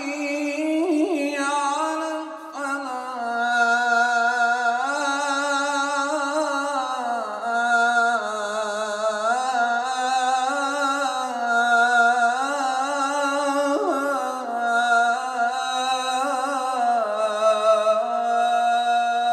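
A man's solo voice chanting in the ornamented Arabic religious style, holding one long unbroken phrase whose pitch winds up and down in melismatic turns.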